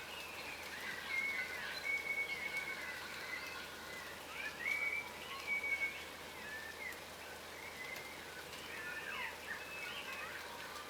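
Yellow rosellas, a form of the crimson rosella, calling while feeding on the ground: many short whistled notes and up-and-down chattering glides from several birds, over a steady faint background hiss.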